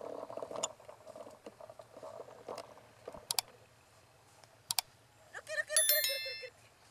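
Subscribe-button sound effect: two sharp mouse clicks a second and a half apart, then a short ringing bell-notification chime. Before them, a soft rustling noise.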